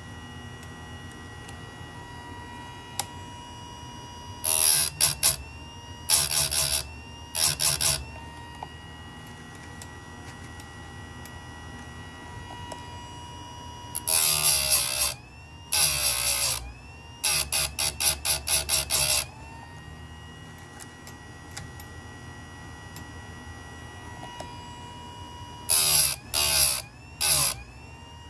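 Chicago Electric electric chainsaw chain sharpener running with a steady motor whine, its grinding wheel lowered onto the chain teeth again and again in short loud grinds. They come in three clusters, the middle one ending in a quick run of brief touches, as it cuts damaged teeth back to new angles.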